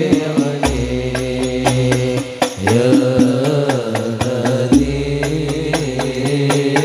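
A male voice sings sholawat over a banjari hadroh ensemble of rebana frame drums beating a quick steady rhythm, with long held deep bass notes coming and going.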